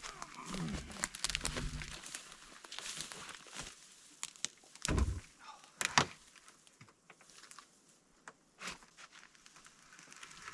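Footsteps with scattered knocks and snaps, and two louder thuds about five and six seconds in.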